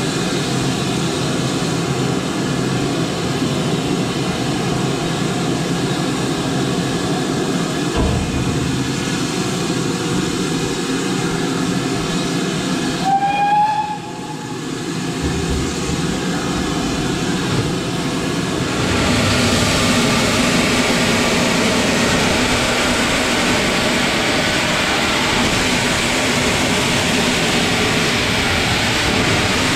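BR Standard Class 5 steam locomotive on the move, heard from the cab: a steady rumble and rail noise. A brief rising high tone sounds about halfway through, and about two-thirds of the way in a louder, even hiss comes in and stays.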